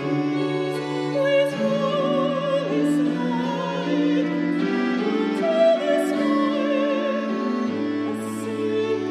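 Soprano singing sustained notes with a wide vibrato over held electronic chords from the tape part; the low chord tones shift about a second and a half in and again near the end.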